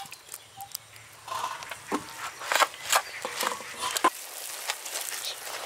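A soft, mashed fish-and-potato mixture being mixed by hand in a bowl: irregular wet squishes and small clicks, starting about a second in.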